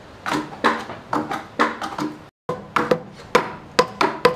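A chouna (Japanese adze) striking wood again and again, chipping out divots, at about two to three blows a second. The blows break off briefly a little over two seconds in, then resume.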